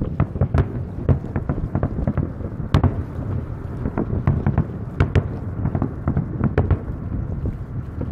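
Fireworks display: many aerial shells bursting in rapid succession, irregular bangs several a second over a continuous low rumble.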